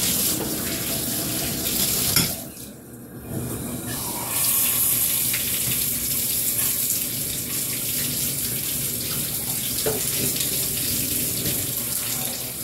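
Bathtub faucet running, water pouring from the spout and splashing into the tub. The flow sound dips quieter about two seconds in, then comes back louder and hissier a couple of seconds later.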